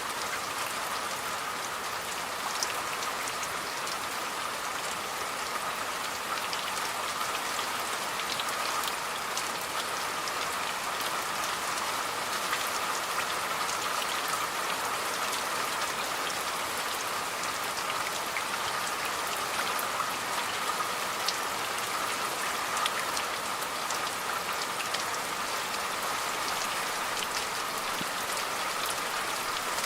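Steady rain falling, with many small, sharp drop ticks over an even hiss.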